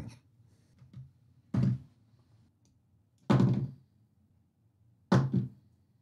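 A man's voice in three short bursts, about two seconds apart, with quiet between.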